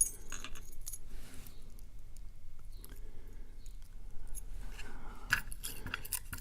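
Light metallic clicks and clinks of lock-picking tools working in the core of a Master Lock Pro Series 6127 padlock, with a quick cluster of sharper ticks near the end.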